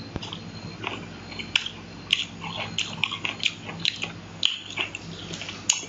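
A person chewing a whole calamansi (limau kasturi) with the mouth close to the microphone: many short, irregular biting and chewing sounds.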